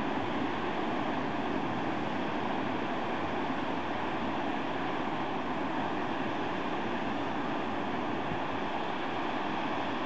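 Pacific Ocean surf breaking on a sandy beach: a steady, even rushing of waves with no single breaker standing out.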